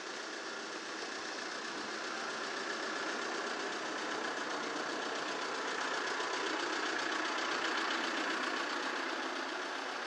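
Vehicle noise on a city street: a steady rush that grows louder toward a peak about eight seconds in, as a vehicle passes.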